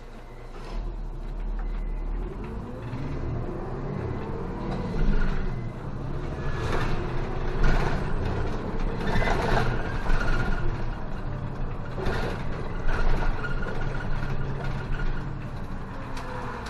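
City bus engine pulling away from a stop and accelerating, its pitch rising and falling as it works through the gears, heard from inside the cabin at the front.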